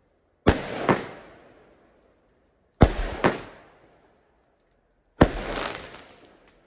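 Fireworks going off three times, about every two and a half seconds. Each time there are two sharp bangs about half a second apart, and then a fading hiss.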